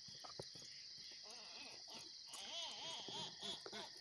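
Crickets chirring steadily in a high band on a night outdoors. A fainter wavering sound that rises and falls joins it in the second half.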